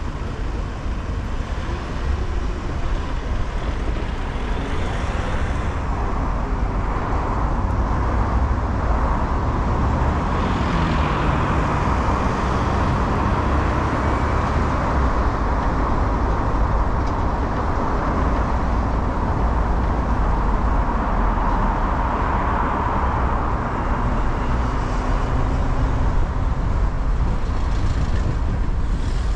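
Car driving in town traffic: steady engine, tyre and road noise that grows a little louder as it pulls away from a standstill, with the engine briefly rising in pitch about ten seconds in as it picks up speed.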